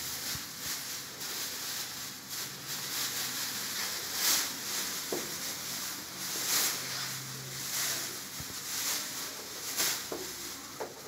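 Thin plastic cape rustling and crinkling as it is unfolded and draped over a seated person, with a few louder swishes.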